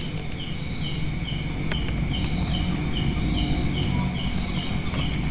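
Night insects chirping: a steady high trill with a short chirp repeating about twice a second. Under it are low rustling and crackling as dry grass is pulled up by hand, with a sharp click about 1.7 s in.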